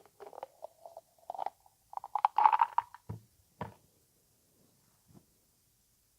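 ASMR mouth sounds: wet clicks and smacks of the lips and tongue, coming thick and fast for about the first three seconds, then a couple of single clicks before it falls nearly quiet.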